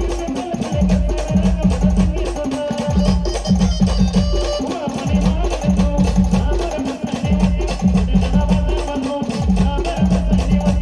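Brass band playing an up-tempo tune: a sustained brass melody over heavy, repeating drum beats.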